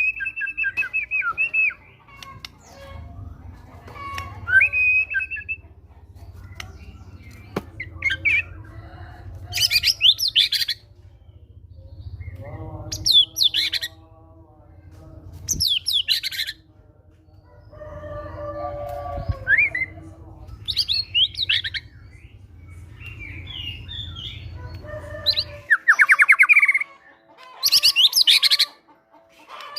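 White-rumped shama singing in fighting form: a varied run of short whistled notes, shrill trills and harsh chattering phrases with brief pauses between, which include mimicked cinereous tit (gelatik batu) calls. A low hum runs underneath and stops near the end.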